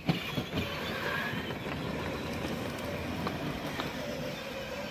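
Children's battery-powered ride-on toy cars driving across a grass lawn: a steady whir of their small electric motors and plastic gear drives with the rolling of plastic wheels, and a few light knocks.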